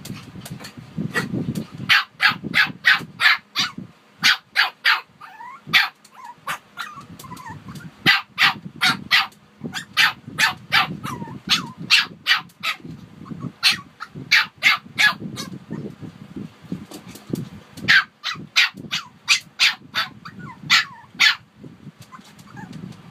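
Shih Tzus barking in quick runs of short, sharp, high yaps, about three or four a second, with brief pauses between the runs.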